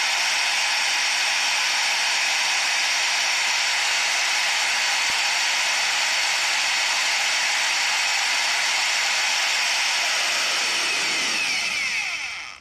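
Electric drill running steadily at high speed with a steady whine, spinning a photoresist-coated circuit board to spread the ink thin. Near the end it is released and winds down, its pitch falling until it stops.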